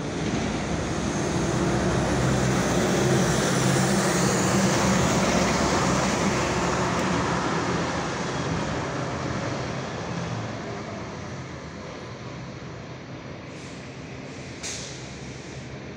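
A large vehicle passing: a wide rushing noise with a low hum that swells over the first few seconds and fades away after about ten seconds. A short sharp click comes near the end.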